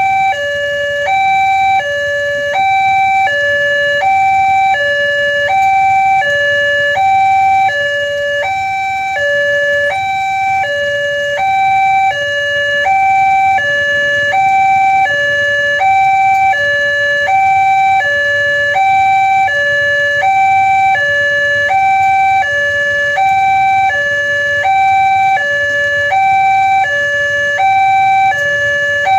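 Railway level-crossing warning alarm sounding its two-tone signal: a higher and a lower electronic tone alternate evenly, each held about 0.7 s, warning that a train is approaching.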